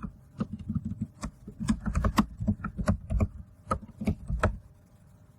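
Typing on a computer keyboard: a quick, uneven run of keystrokes that stops about four and a half seconds in.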